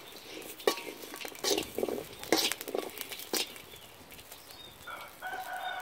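A metal ladle scraping and knocking against a cast-iron wok, several sharp strokes, as green chillies, shallots and garlic are turned in the dry pan. Near the end a chicken starts clucking.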